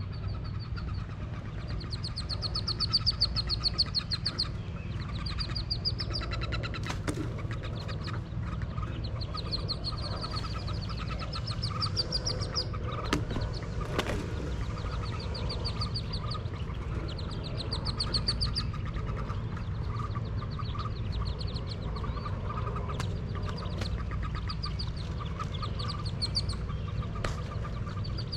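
Wood duck ducklings peeping in rapid high-pitched runs, bout after bout every few seconds, over a steady low rumble.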